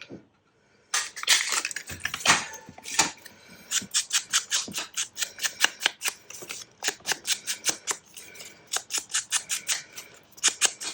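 Scissors snipping through paper in a long run of short, quick cuts, about three or four a second, after a few rustles of paper being handled.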